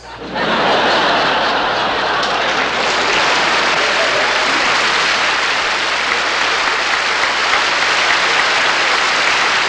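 Audience applause and laughter breaking out right after a joke's punchline, swelling within the first half-second and then holding steady and loud.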